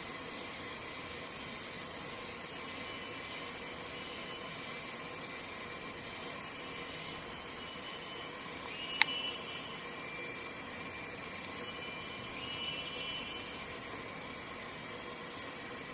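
Steady outdoor hiss with faint, thin, high-pitched calls coming and going, and a single sharp click about nine seconds in.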